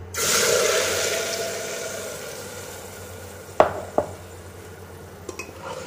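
Watery green coriander-chilli chutney hitting hot oil in a pressure cooker: a sudden loud sizzle that slowly dies down over a few seconds as the wet paste meets the oil. Two sharp taps, about a third of a second apart, follow past the middle, a utensil or jar knocking on the pot.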